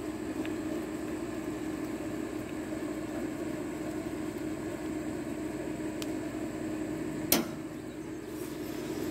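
A steady low hum with a single sharp knock about seven seconds in, from handling the riding mower during a battery swap.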